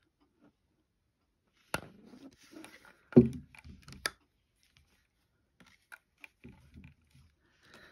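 Two portable plastic blenders being handled: a sharp click, some rustling, then a knock about three seconds in as one is set down on the table, followed by light clicks and scrapes of the jars.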